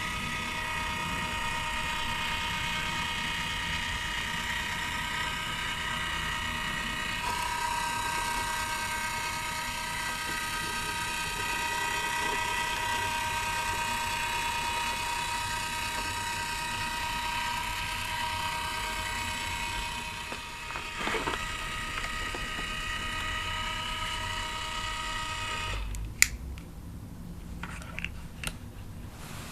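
Small electric motor and plastic gears of a Lemax SpookyTown animatronic display running with a steady whine, which cuts off suddenly near the end. A few sharp clicks follow.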